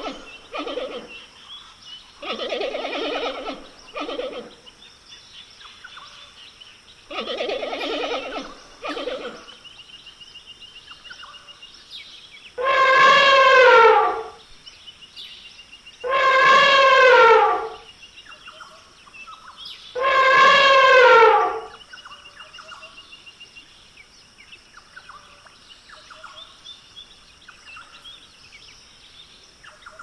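Elephant trumpeting three times, each call about a second and a half long, loud and falling in pitch. Before that come several shorter, rough, buzzy animal calls, with faint bird chirps underneath throughout.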